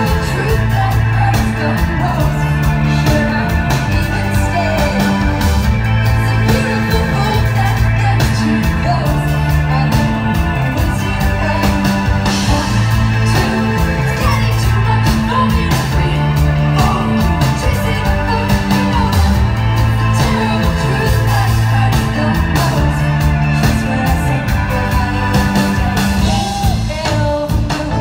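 Live band performance: a female lead vocal sings over synthesizer keyboards, a drum kit and a repeating bass line.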